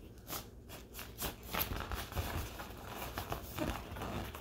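An inflated vinyl fish toy handled and turned in the hands: its plastic skin rubbing and brushing in short, irregular strokes.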